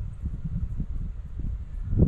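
Irregular low rumbling of wind buffeting the microphone.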